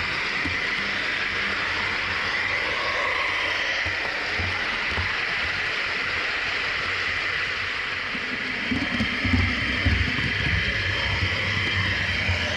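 Model railway vehicle running along the track, heard from a camera riding on the train: a steady hiss and whine of wheels and drive. From about nine seconds in there are irregular low knocks.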